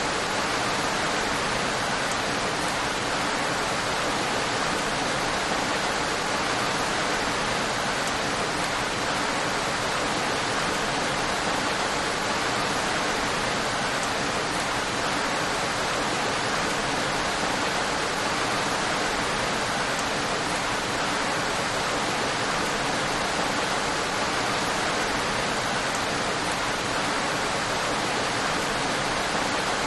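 Steady rain, an even unbroken hiss that holds at the same level throughout.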